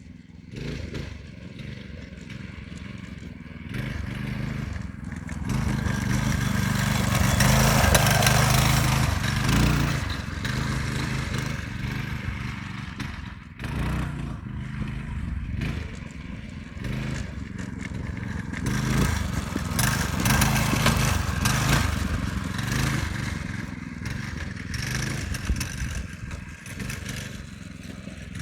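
Go-kart's 8-horsepower small engine running as the kart is driven around, its sound swelling and fading as it comes near and moves away, loudest about eight seconds in and again around twenty seconds.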